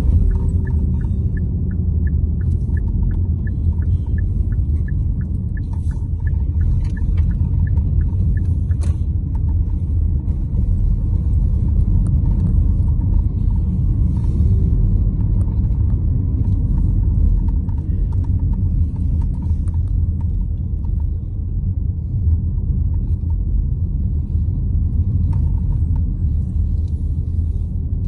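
Steady low rumble of a car driving along, heard from inside the cabin: road and engine noise. A faint, rapid, even ticking runs through the first several seconds.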